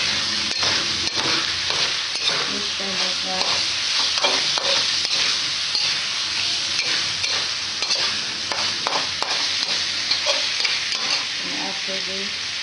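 Chicken pieces with onion and garlic sizzling in a metal wok while a metal spatula stirs and scrapes them, clicking and knocking against the pan.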